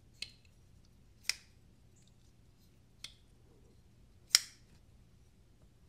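McNees Mac 2 folding knife being flicked open and shut on its freshly tightened pivot with phosphor bronze thick washers: four sharp clicks a second or more apart, the loudest a little over four seconds in. The pivot is still stiff and expected to break in.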